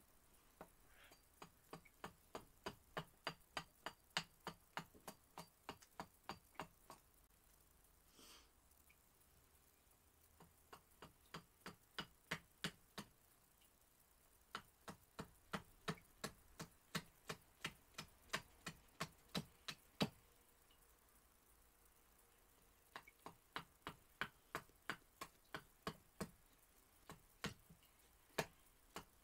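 Straight carving knife cutting down along a cherry-wood spoon blank braced on a stump: runs of short, sharp clicks about three a second, one per stroke, with short pauses between runs.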